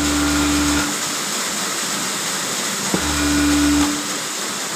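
Industrial overlock sewing machine running in short bursts while a knitted glove cuff is edged: it runs for about a second, stops, starts again with a click about three seconds in, and stops again a second later.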